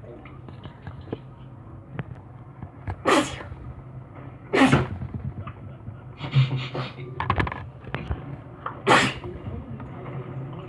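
A person sneezing repeatedly: three sharp, loud sneezes, the last near the end, with a cluster of smaller bursts between the second and third.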